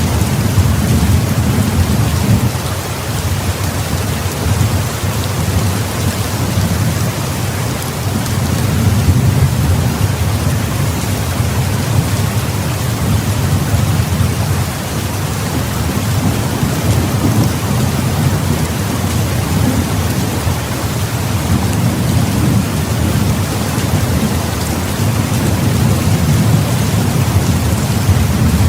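Heavy rain falling steadily, with a continuous low rumble of thunder underneath.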